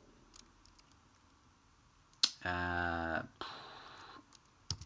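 A man's drawn-out hesitant "uhh", held at one pitch for under a second while he thinks, just after a single sharp click about two seconds in. Otherwise quiet room tone, with a soft hiss after the "uhh" and a few faint clicks near the end.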